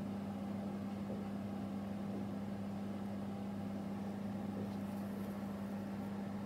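Steady low hum that holds one pitch without change, under a light hiss of room noise.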